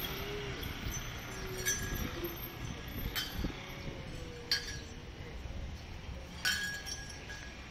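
Four sharp metallic clinks, each ringing briefly, spaced irregularly over low street background noise.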